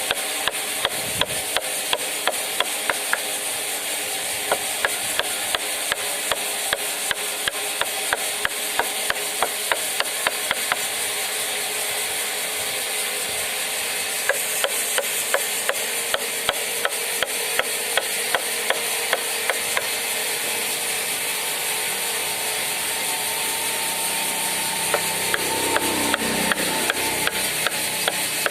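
Mallet striking a wood-carving chisel in a steady rhythm of about two blows a second, pausing for a few seconds partway through before resuming, over a constant hiss.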